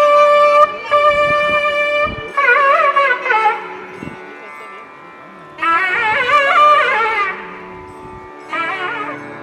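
Carnatic temple music: a melodic instrument holds one long note, then plays bending, ornamented phrases in three bursts with quieter gaps between, over a faint steady drone.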